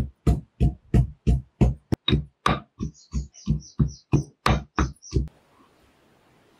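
Marble pestle pounding green chillies and coriander in a marble mortar: steady thuds at about three strokes a second, stopping a little after five seconds in.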